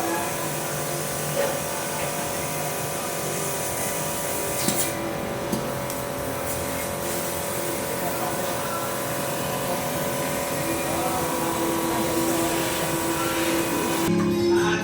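CNC laser cutting machine running, a steady mechanical whir with several held hum tones. Music comes in near the end.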